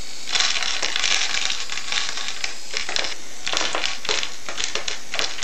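A battery-powered LEGO rubber-band Vulcan minigun firing, its motor and worm-gear gearbox spinning the barrels as they release rubber bands in a rapid, irregular plastic clatter, with wooden pegs being knocked over.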